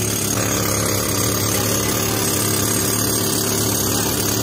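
Pneumatic rock drill hammering steadily into a granite block, a loud continuous rattle.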